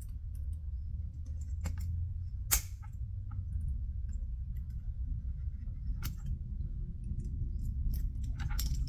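A few separate sharp clicks and taps from small craft items being handled, the loudest about two and a half seconds in, over a steady low hum.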